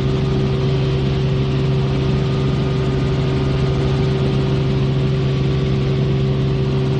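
Helicopter in flight: a steady drone of rotor and turbine with a fast low flutter from the rotor blades and a constant hum of several tones.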